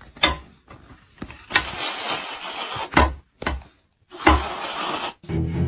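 A few sharp knocks with two spells of hissing, rustling noise between them, then music starts near the end.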